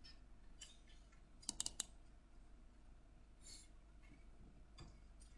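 Near silence with a quick run of faint clicks about a second and a half in, from a computer mouse being clicked.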